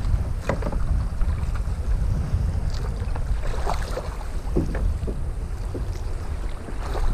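Wind buffeting the microphone of a kayak-mounted action camera as a low steady rumble, with small waves slapping and splashing against the kayak hull in scattered short bursts.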